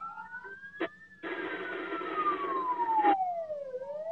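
Ambulance siren in a slow wail, its pitch rising, falling over about two and a half seconds, then rising again. A harsh burst of noise sounds over it for about two seconds in the middle.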